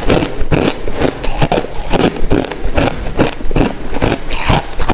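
Crushed ice being chewed: a run of loud, sharp crunches, about three or four a second.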